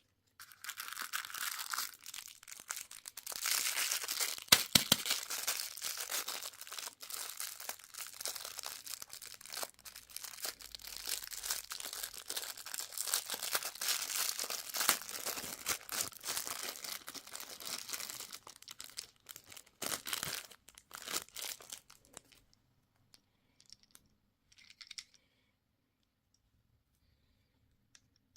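Candy wrapper being torn open and crinkled: dense, close crackling for about twenty seconds that stops about 22 seconds in, with a few faint rustles after. A single sharp knock stands out about four and a half seconds in.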